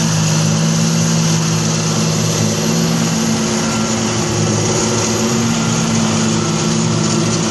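John Deere 8530 tractor's six-cylinder diesel working under load, driving a trailed Pöttinger Mex 6 forage harvester as it picks up, chops and blows grass into a trailer. A steady engine drone under a continuous rushing whirr from the harvester's cutting and blowing rotor.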